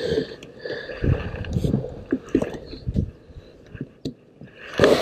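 A freshly landed trout flopping and slapping on wooden dock boards, in irregular wet thumps, with a louder burst of noise near the end.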